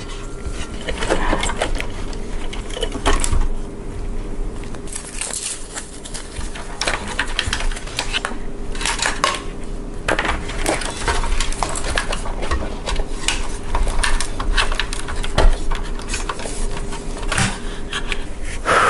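Irregular small clicks, taps and rattles of plastic and metal as a case fan is lifted out of a small PC case and remounted, with cables being moved around, over a faint steady hum.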